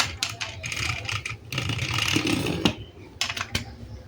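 Hard plastic toy parts clicking and clattering as they are handled, with a stretch of rustling in the middle.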